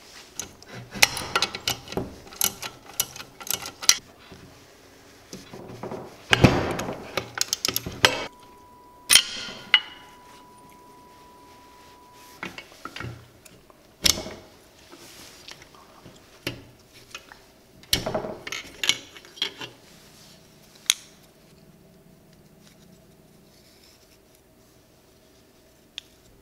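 Metal parts of a Briggs & Stratton flathead small engine and steel hand tools clinking, tapping and clattering in several short bursts as the engine is taken apart, with quieter gaps between.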